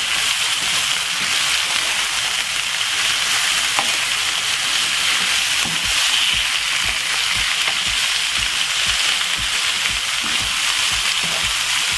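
Shredded cabbage and mixed vegetables sizzling steadily in a frying pan with a little olive oil, stirred now and then.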